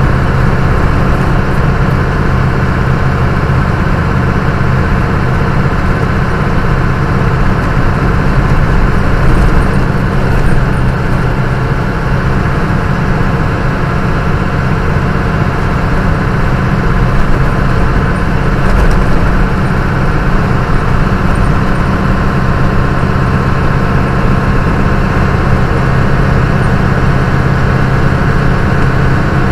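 Old truck cruising at about 85–90 km/h, heard from inside the cab through the dash cam's microphone: a steady low engine drone with tyre and road noise.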